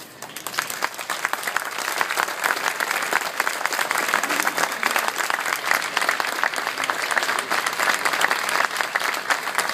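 Audience applauding at the end of a band and chorus performance. The dense clapping swells over the first second or two and then holds loud.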